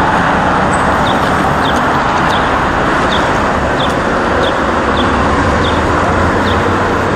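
Freight train rolling across the railway overpass, a loud steady rumble and roar. A short high chirp repeats every half second or so over it.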